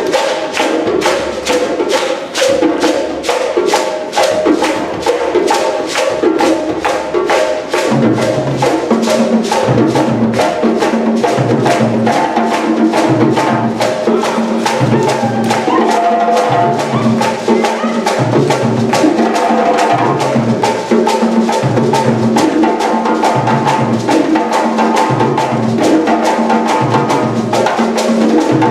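West African drum ensemble playing a fast, dense rhythm of hand-drum strokes. About eight seconds in, a deep drum joins with a regular, evenly spaced beat.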